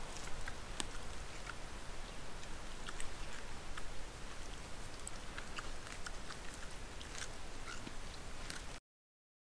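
Wild boar feeding on the forest floor, with scattered crunching and chewing clicks over the steady hiss of a trail camera's microphone. The sound cuts off suddenly near the end.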